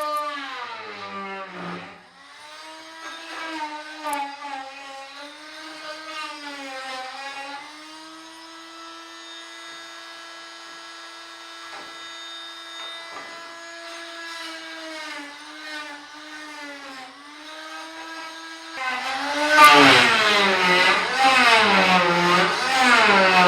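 Rockwell oscillating multi-tool running with a high buzz whose pitch dips and recovers as the blade bites into the cut under load. The pitch holds steady through the middle, and the tool gets much louder and wobbles in pitch again near the end as it cuts hard.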